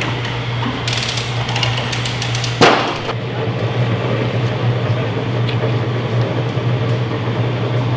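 Knocks of wood and tools as a hot steam-bent white oak frame is set into a wooden boat's hull, with a few sharp knocks about a second in and one loud bang about two and a half seconds in, over a steady low hum.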